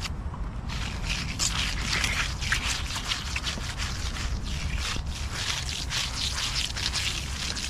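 Quick, repeated scraping strokes of a hand finishing tool dragged over fresh wet concrete. They start under a second in and carry on almost to the end, over a steady low rumble.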